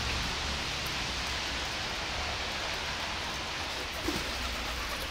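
Steady rain falling on wet pavement, an even hiss, with one brief small sound about four seconds in.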